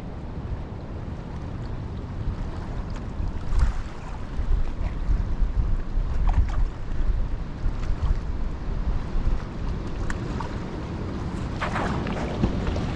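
Wind buffeting the microphone in gusts: a low rumble that swells and falls, strongest in the middle stretch.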